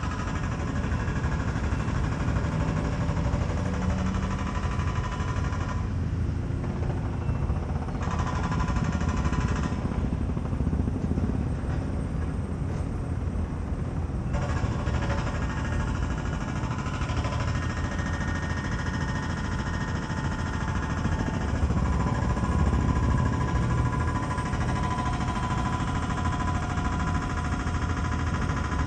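Steady outdoor background noise, heaviest in the low end, with a faint steady machine hum.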